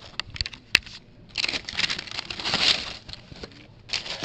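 Plastic packaging crinkling and rustling as it is handled, with a few sharp clicks in the first second.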